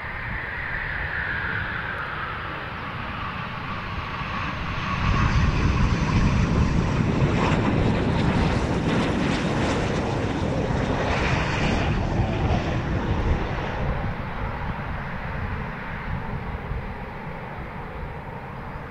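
Eurofighter Typhoon twin EJ200 jet engines on landing. A falling whine comes first, then louder jet noise from about five seconds in during the roll-out. After about fourteen seconds it eases to a quieter, steady jet engine running as a Typhoon taxis.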